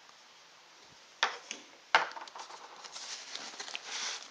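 A cardboard box being handled and cut open with a small knife: two sharp knocks, about one and two seconds in, then a run of scratching and rustling.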